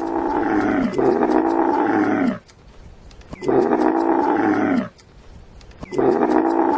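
Repeated loud calls of a large animal, each lasting about a second and falling in pitch, four in a row with short pauses between.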